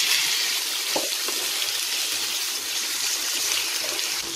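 Raw pork belly pieces frying in hot oil and caramelised sugar in a frying pan, a steady, even sizzle as the meat starts to brown. A couple of light knocks come about a second in.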